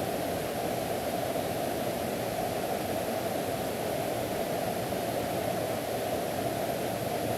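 Mountain valley stream rushing steadily, an even, unbroken wash of water noise.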